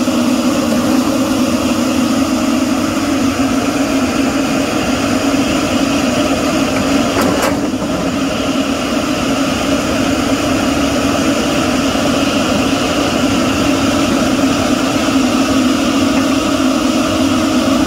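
Diesel engine of a hydraulic knuckleboom log loader running with a steady drone while its grapple handles pine logs. A single sharp click about seven and a half seconds in.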